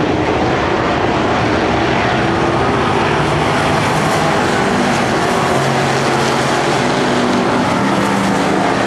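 Several dirt-track race cars' engines running as the cars circle the track, a steady, loud blend of engine notes whose pitches shift as the cars speed up and slow.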